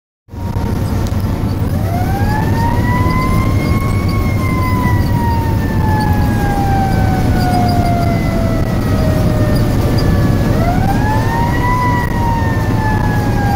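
Fire tanker's siren heard from inside the cab over steady truck engine and road noise. The siren rises about two seconds in, falls slowly for several seconds, then rises again near the end and starts falling once more.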